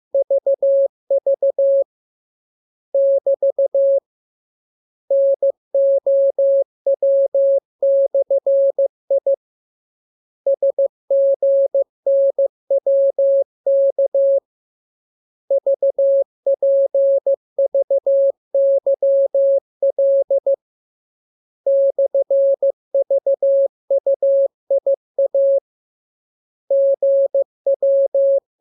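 Morse code sent as a single steady mid-pitched beep, keyed into short dots and longer dashes. The characters come in groups separated by pauses of about a second.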